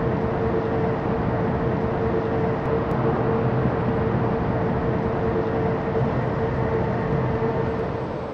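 Steady noise of a train at a railway platform, with a constant hum that stops near the end.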